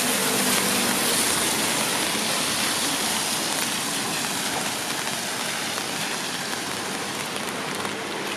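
Steady rain falling on pavement and surfaces, a dense even hiss that eases slightly toward the end. A faint vehicle hum fades out in the first couple of seconds.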